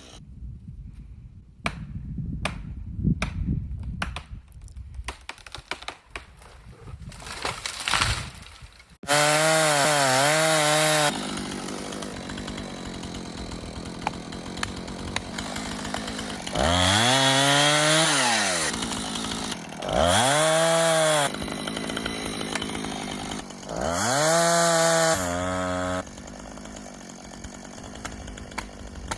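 Husqvarna Rancher 455 two-stroke chainsaw revving up to full throttle and back down in four short cutting bursts, idling between them. Several seconds of scattered snaps and crackles come before the first burst.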